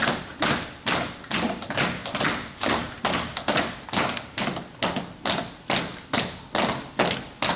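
Steady, even beat of sharp thuds, a little over two a second, each ringing briefly in the large tiled hall.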